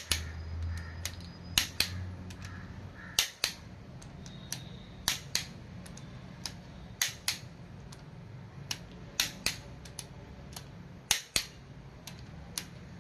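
Click-type torque wrench clicking as it reaches its 40 lb-ft setting on each cylinder head bolt, tightened one after another: sharp double clicks about every two seconds.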